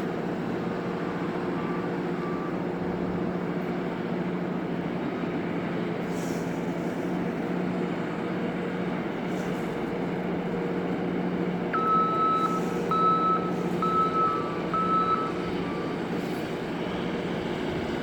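Heavy diesel engine running steadily, with an electronic warning beeper giving a run of short high beeps about twelve seconds in.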